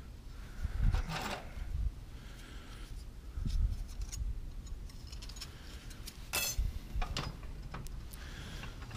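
Loose screws, nails and small metal hardware rattling and clinking in a tiered organizer tray as a gloved hand rummages through it, with scattered sharp clicks and a few short bursts of clatter.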